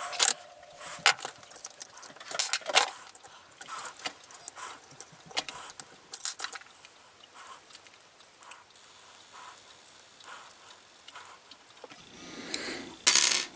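Chrome steel sockets clinking and clacking against each other and the rail as they are pushed onto 3D-printed plastic socket holders on an aluminium bar. The clacks come irregularly, with a brief louder rasp and click near the end.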